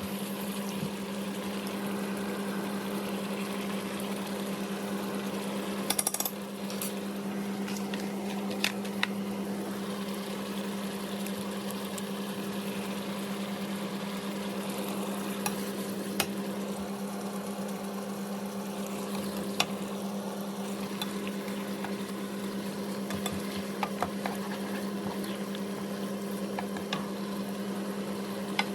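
Food sizzling in a pan over a steady low hum, with a cooking utensil clicking against the pan now and then, most sharply about six seconds in.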